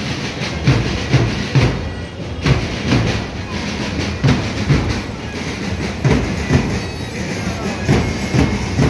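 Rhythmic drum beats, about two to three thumps a second, over the steady noise of a crowd.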